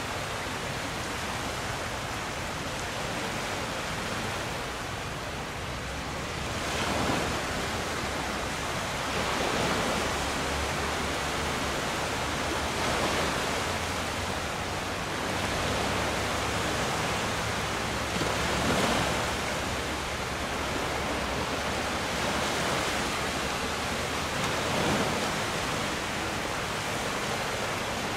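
Steady rush of wind and water on a sailing boat under way, swelling louder every few seconds.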